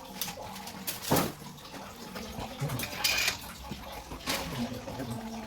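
Water running, with scattered sharp knocks and clatter and a brief hiss about three seconds in.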